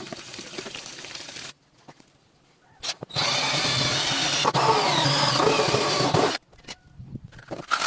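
Small power tool, like a drill, running loudly for about three seconds and cutting off suddenly, after a short quiet gap.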